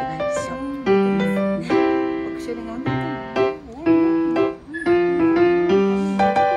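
Background piano music: a slow melody of sustained notes, about one new note a second.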